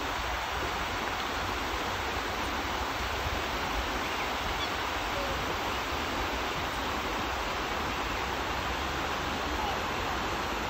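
Steady rush of water from large lake fountains, their jets splashing back down onto the surface.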